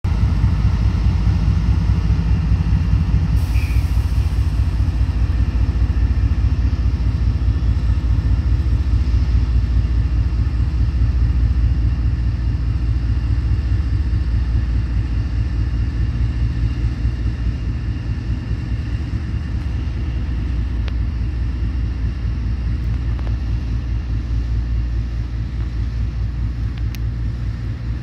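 CSX GE diesel locomotive working as the distributed power unit on a departing freight train, its engine running with a steady low rumble that slowly fades as it pulls away. A brief hiss about three and a half seconds in.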